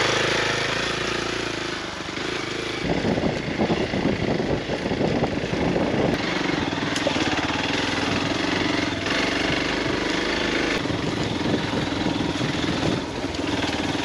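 Motorcycle engine running as the bike is ridden along, a steady engine hum under continuous road noise, rougher and choppier for a few seconds early on.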